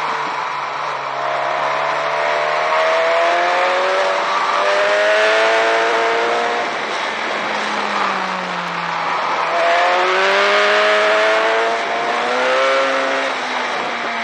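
Inline-four sport motorcycle engine pulling hard under acceleration, its pitch climbing twice and dropping in between as the rider shifts and rolls off for bends. A steady rush of wind runs under it.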